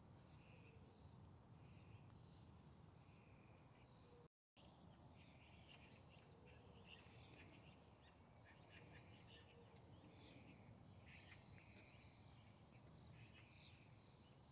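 Faint outdoor ambience: scattered bird chirps and calls over a low steady background rumble, cut off briefly about four seconds in.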